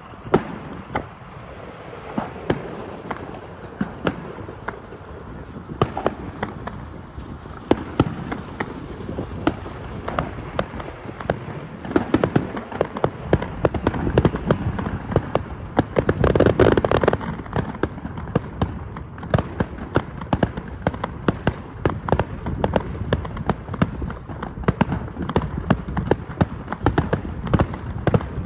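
Fireworks display: a steady run of sharp bangs and crackles, with a louder, longer burst about sixteen seconds in and rapid crackling that comes thicker and faster in the second half.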